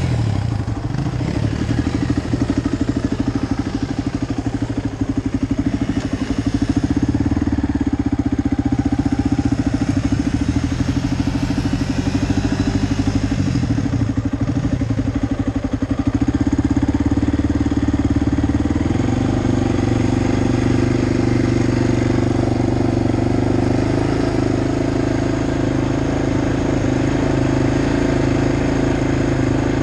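Quad (ATV) engine running close by, its speed rising and falling through the first half, then holding a steady note from a little past the middle.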